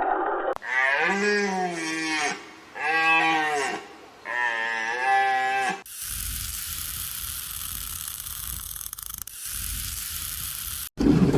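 A cow mooing three times, each moo a long drawn call that rises and falls in pitch. After the moos, about six seconds in, a steady rushing noise follows until an abrupt cut near the end.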